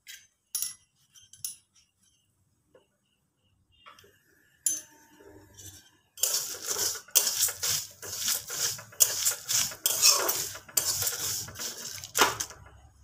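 Metal spatula scraping and stirring whole spices (coriander and cumin seeds, dried red chillies) dry-roasting in a metal kadai, the seeds rattling against the pan. A few separate clicks first, then steady stirring from about halfway through.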